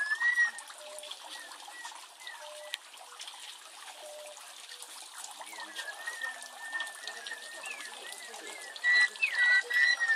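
Water trickling through a trick-fountain grotto while water-driven whistles warble in gliding, birdsong-like tones. Short low notes repeat every second or so, and the whistling grows louder and steadier near the end.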